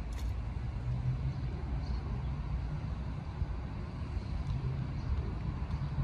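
Steady low outdoor rumble with no distinct events.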